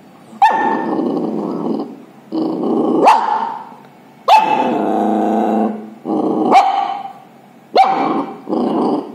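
Puppy growling in repeated bouts of a second or two, several starting with a sharp bark, as a hand reaches toward its food bowl while it eats: guarding its food.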